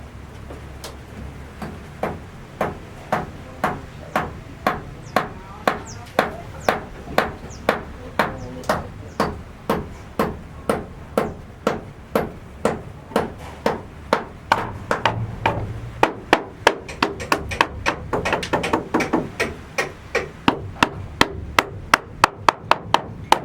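Hammer blows struck at a steady pace of about two a second, getting quicker and less regular near the end.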